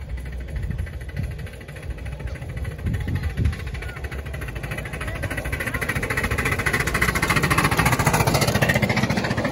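7¼-inch gauge GWR prairie tank locomotive working a loaded passenger train, its exhaust beating in a fast, even rhythm with wheels running on the rails. It grows steadily louder as it approaches and is loudest as it passes close by near the end.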